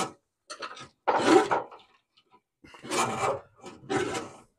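Rubbing and scraping handling noise in about five short bursts, the loudest a little over a second in: a wiring harness being fed down through a truck's engine bay.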